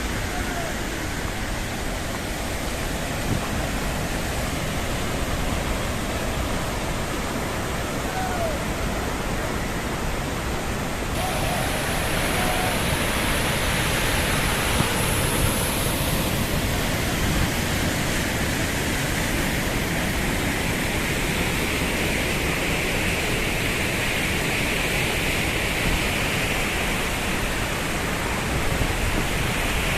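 Dudhsagar waterfall in monsoon flow, a steady dense rush of falling water. About eleven seconds in, the sound turns brighter and hissier.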